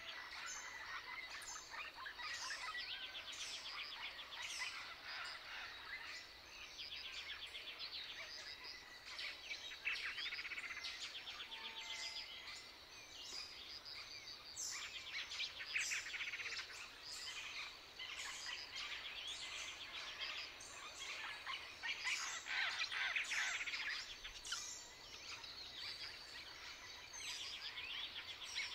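Small songbirds chirping and singing, many short calls overlapping, with fast rattling trills now and then, over a faint outdoor hiss.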